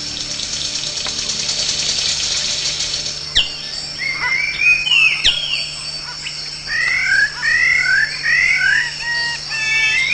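Tropical forest birds calling: a dense, rapid buzzy trill for the first three seconds or so, then a run of short whistled notes that slide down and up, repeated many times, over a steady high-pitched whine.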